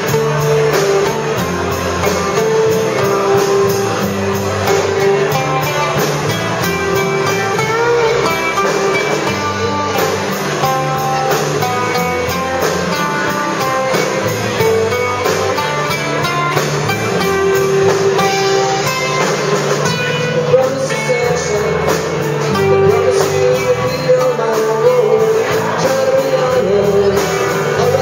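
Live band playing a rock song, with several acoustic guitars over a drum kit and a sustained melody line running through it.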